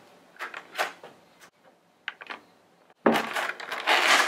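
A Funko Pop's cardboard box and clear plastic tray being handled. A few short scrapes and rustles, a couple of small clicks just after two seconds in, then loud crackling of the plastic tray from about three seconds in.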